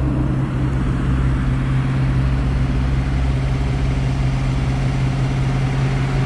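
Steady low hum of an idling engine, unchanging in pitch, over a haze of outdoor noise.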